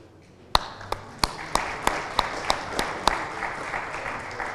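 Audience applauding. One nearby pair of hands claps loudly about three times a second over the general applause, which starts about half a second in and fades near the end.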